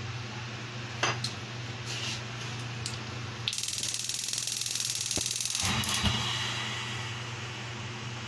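A gas stove burner under an aluminium pan starts up about three and a half seconds in: a sudden hiss with fast fine ticking, a low thump about two seconds later, then the hiss fades away. A steady low hum runs underneath.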